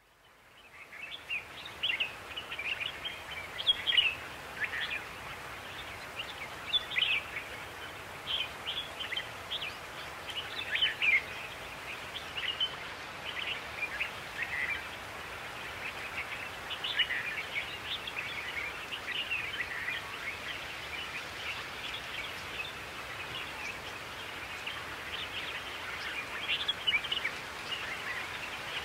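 Songbirds chirping and singing, many short overlapping calls over a steady faint outdoor hiss, fading in at the start.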